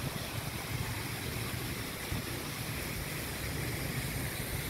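Steady outdoor street ambience: an even hiss over a low, fluctuating rumble, with no distinct events.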